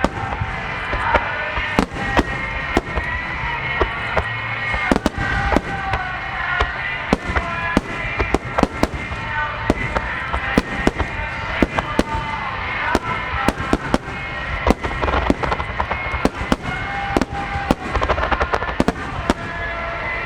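Aerial fireworks bursting in a dense finale barrage, with sharp bangs coming several a second at uneven intervals. Music with short held notes plays underneath.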